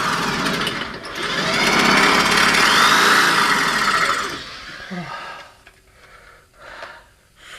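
A power tool runs hard against an original riveted upper ball joint for about four and a half seconds, then stops. A few short, light knocks follow.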